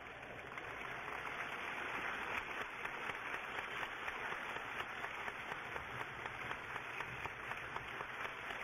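Audience applauding, a dense patter of many hand claps that swells over the first couple of seconds and then holds steady.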